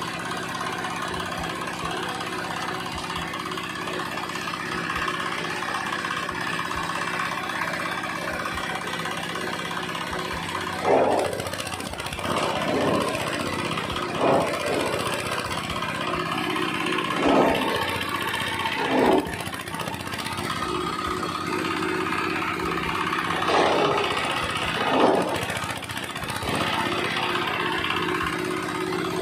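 Engine-driven coconut husk shredder running steadily. From about a third of the way in, about seven short, loud surges break over the running noise, as the machine chews through husks being fed in.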